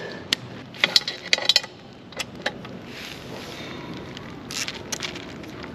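Sharp metallic clicks and clinks of a hex key turning the last mounting bolt of a motorcycle's metal skid plate, a cluster about a second in and a few more near the end.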